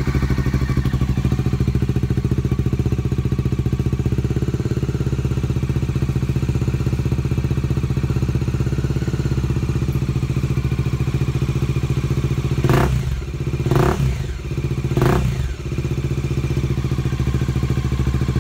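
Bajaj Dominar 400's single-cylinder engine idling steadily through an aftermarket Akrapovic M1 slip-on exhaust, with a bassy note that is not very loud. About two-thirds of the way in, the throttle is blipped three times, roughly a second apart.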